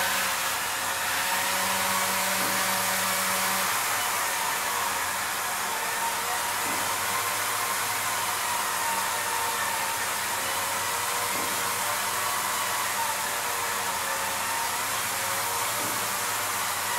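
Motors of a homemade six-axis motion control camera rig running as they drive the camera to its next position: a steady hiss-like noise with faint whining tones that dip briefly about every four to five seconds.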